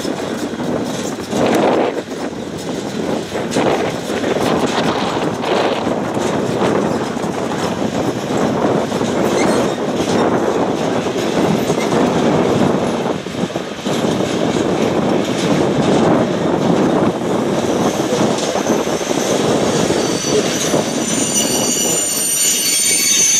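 Sliding-wall freight wagons (Habis) rolling slowly along the track, a steady rumble of wheels on rail with some clicking over the rail joints. High-pitched wheel squeal sets in near the end.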